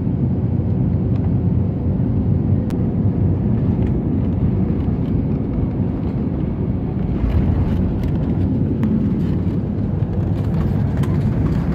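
Jet airliner cabin noise: a steady low rumble of engines and rushing air on final approach. About seven seconds in it turns brighter and rougher as the plane touches down and rolls out along the runway.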